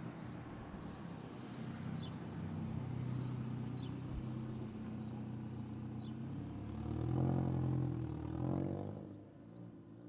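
A low engine-like rumble running steadily, swelling about seven seconds in and fading away near the end, with faint short chirps above it.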